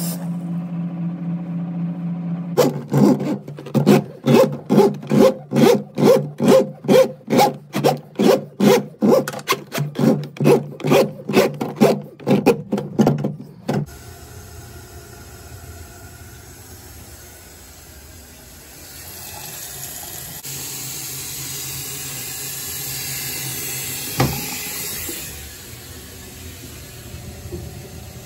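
A steady low hum, then a loud, even run of strokes about twice a second for roughly eleven seconds, which stops abruptly. After that comes a softer steady hiss that swells and fades, with one sharp click near the end.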